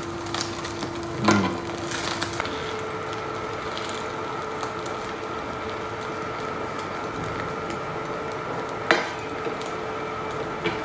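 Egg and toast frying in oil in a pan with a steady sizzle, while a metal spatula scrapes and presses in the pan. It gives two sharp knocks against the pan, about a second in and near the end. A steady whine runs underneath and steps up in pitch about two seconds in.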